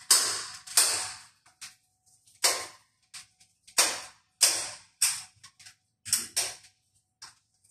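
Metal walker's height-adjustable legs being reset to uneven lengths: a string of sharp metallic clicks and knocks, roughly one every half second to second, each dying away quickly.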